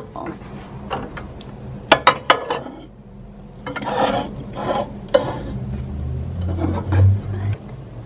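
Ceramic mugs and a drinking glass knocking and clinking as they are set down on a microwave's glass turntable, with a cluster of sharp knocks about two seconds in and another a little after five seconds.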